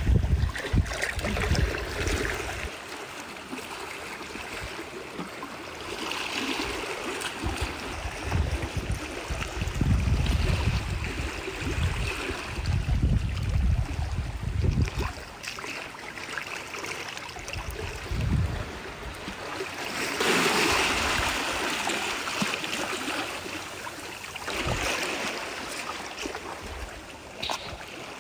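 Shallow seawater trickling and lapping over mud and shells, with intermittent low rumbles on the microphone.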